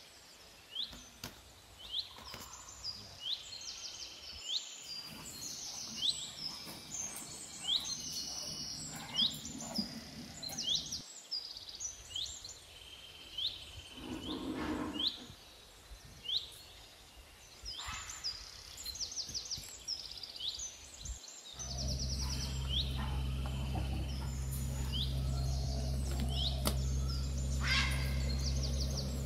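Small birds chirping and twittering in quick, repeated short calls. A steady low hum sets in about three-quarters of the way through.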